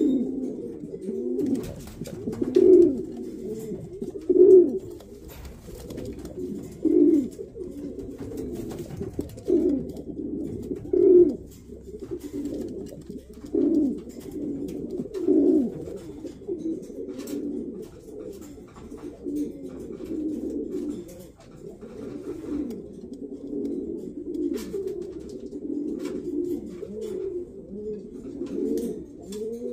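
Racing pigeons cooing: a run of low coos, with loud ones about every two seconds in the first half, then softer, near-continuous cooing, with a scatter of faint clicks.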